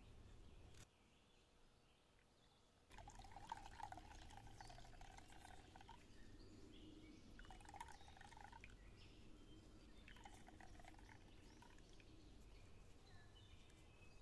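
Onion juice trickling and dripping into a clay pot as a cloth full of grated onion is wrung out by hand. It starts about three seconds in and comes in several spells.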